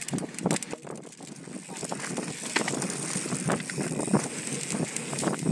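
Mountain bike rolling fast down a rocky dirt trail, recorded by a camera on the bike: irregular knocks and rattles as the tyres hit rocks, over steady tyre and wind noise on the microphone.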